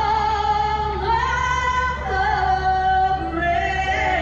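A woman singing long held notes, each sustained for about a second before moving to the next pitch.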